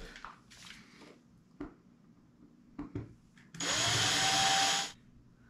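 A handheld power tool's electric motor is switched on, spins up with a rising whine and runs with a steady hiss for just over a second before cutting off. A few light knocks from handling the parts come before it.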